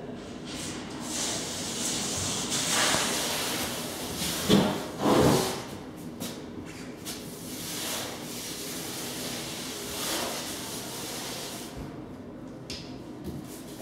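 A paintbrush rubbing and sweeping over a wall in broad strokes: a string of noisy swishes a few seconds apart, the loudest two close together about halfway through.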